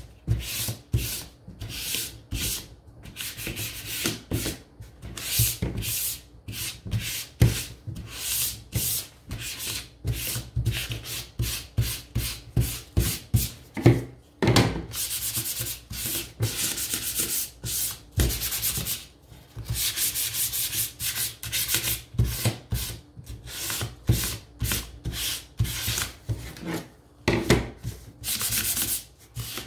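Hand-sanding a stained thin wooden windmill-tower frame with a sanding sponge: quick back-and-forth scratchy strokes, with short pauses and a brief knock about halfway through as the piece is turned over. The sanding smooths the wood after staining.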